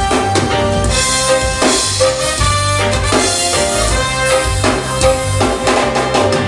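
Live reggae band playing an instrumental passage: drum kit and bass keeping a steady beat under held keyboard or horn notes, with no singing.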